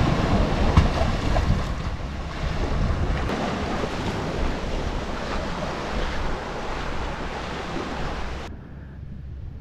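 Small sea waves washing onto a rocky, sandy shore, with wind buffeting the microphone. Near the end the sound turns quieter and duller.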